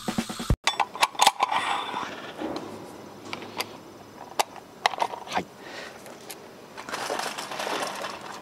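Scattered metallic clicks, clinks and knocks as the metal parts of a wheel-nut torque wrench and its wheeled stand are handled and fitted together.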